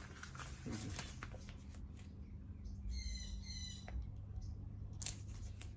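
Faint rustling and clicking of packaging being handled over a steady low hum, with a short high squeak about three seconds in and a sharp click about five seconds in.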